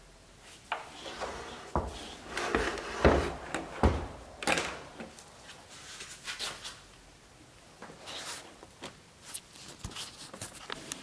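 Handling noise: a string of knocks, bumps and rubbing as things are moved about on a workbench, loudest about three to four seconds in, then lighter scattered clicks.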